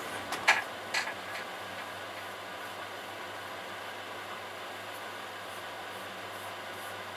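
Steady electric motor hum with an even hiss, and a few sharp clicks in the first second.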